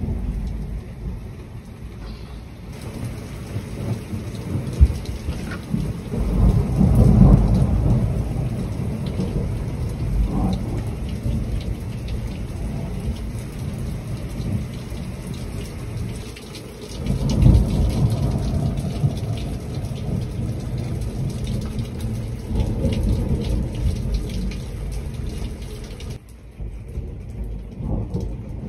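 Heavy rain pouring down steadily in a thunderstorm, with thunder rumbling loudly twice, about six seconds in and again near seventeen seconds, and a weaker rumble later. A single sharp crack sounds about five seconds in.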